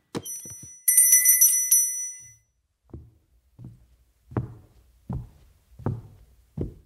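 A sharp knock, then a small bell rung once and left ringing for about a second, a service bell summoning the household butler. Then six evenly spaced footsteps, getting louder as someone walks closer.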